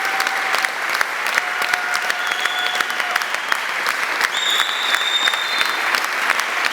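Audience applauding steadily, with a few faint held tones above the clapping.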